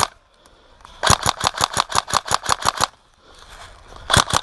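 Airsoft gun firing on full auto, sharp evenly spaced shots at about eight a second. A burst of roughly two seconds starts about a second in, and a short burst of four shots comes near the end.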